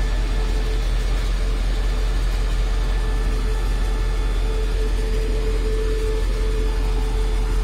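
Diesel-electric locomotive's MTU 16V4000 V16 diesel engine idling: a steady low rumble with a steady hum held on one pitch over it.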